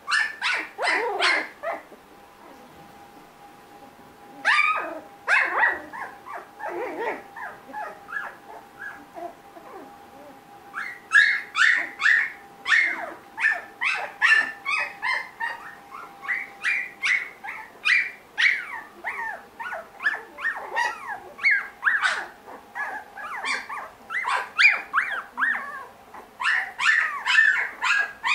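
Three-week-old Australian Labradoodle puppies yipping and whimpering in short, high-pitched calls. There are a few bursts at first, then from a little before halfway a near-continuous run of rapid yips, several a second.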